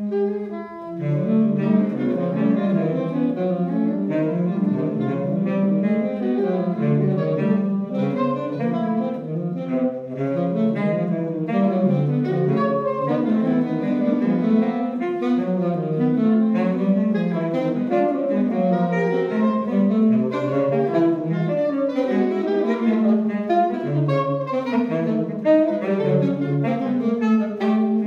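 Soprano, alto and tenor saxophones improvising together: a dense tangle of short, overlapping notes that barely lets up, thinning briefly about a second in.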